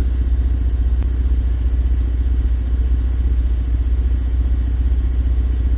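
Ford 3.7 Duratec V6 idling with a steady, low, evenly pulsing exhaust note.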